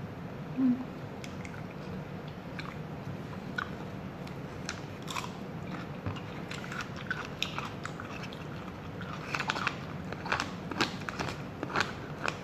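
Close-miked mukbang eating: a person biting and chewing food, with many small wet, crunchy clicks that come thicker in the last few seconds. A brief low sound stands out about a second in, over a steady low hum.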